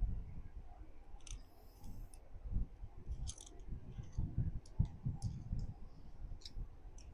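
Scattered small clicks and light knocks of hand tools and metal parts as a small outboard carburetor is handled and screwed back together, with dull low bumps in between.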